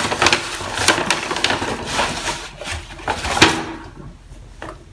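Brown kraft-paper shopping bag rustling and crinkling as a hand reaches in and handles its contents, with a rapid run of crackles that quietens about three and a half seconds in.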